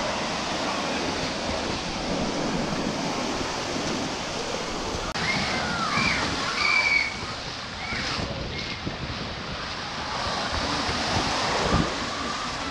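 Shallow ocean surf washing and foaming around the wader and the camera at the waterline: a steady rush of water. A few short, high cries sound about halfway through.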